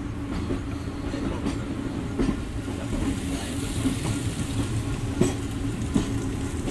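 Passenger train running: a steady rumble with a faint hum and a few sharp knocks, such as wheels crossing rail joints.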